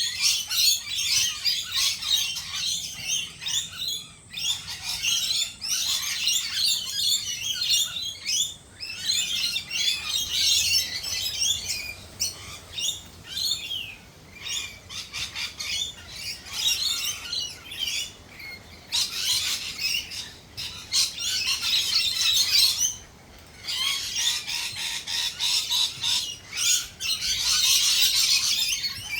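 Australian native birds chirping and twittering in a dense, continuous chorus of rapid overlapping high notes, with a few brief lulls.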